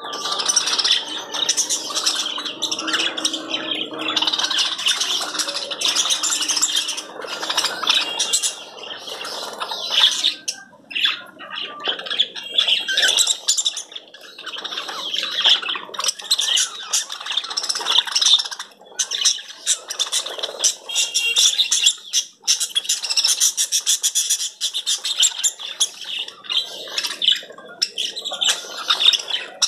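A group of small birds chirping and squawking busily, many high calls overlapping without a pause.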